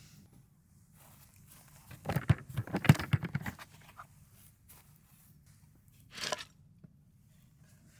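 A quick rattling run of small clicks and crunches, then a short rustle a couple of seconds later: hard things being handled.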